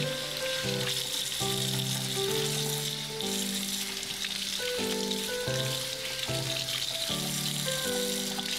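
Tap water running steadily from a kitchen faucet and splashing over leafy morning glory greens in a sink, a constant hiss, under background music: a simple melody of held notes.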